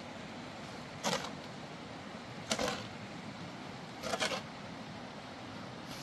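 A long-handled shovel scraping into a pile of sand and gravel three times, about a second and a half apart, each stroke a short scrape.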